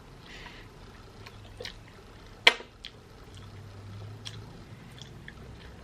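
Close-up chewing of turkey meat coated in Alfredo sauce: scattered wet mouth clicks and smacks, with one sharper click about two and a half seconds in.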